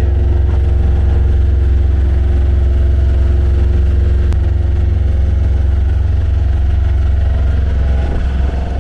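A sailboat's auxiliary engine running steadily under way, a deep, even drone with a steady hum above it.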